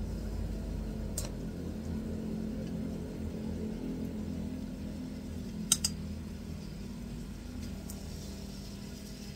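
Chicken pan-frying: a steady low rumble from the stove and pan, with two sharp clicks of metal tongs, about a second in and just before the six-second mark.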